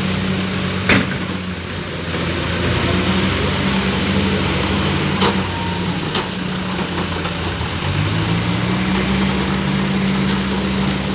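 Bobcat B900 backhoe loader's diesel engine running under working load, its note shifting a little a couple of seconds in and again later. A sharp clank comes about a second in, with two lighter knocks in the middle.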